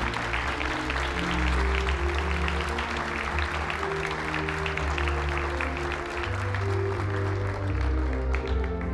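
Audience applauding over instrumental background music with sustained low notes; the clapping dies away near the end.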